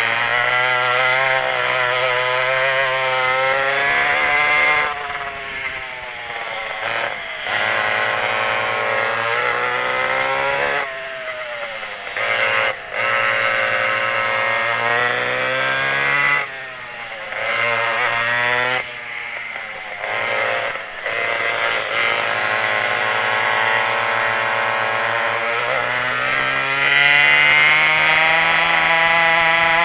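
Twin McCulloch 87 cc (5.3 cu in) two-stroke kart engines running at race speed. Their pitch falls several times as the throttle is lifted for corners, then climbs back as they pull out again, rising strongly near the end.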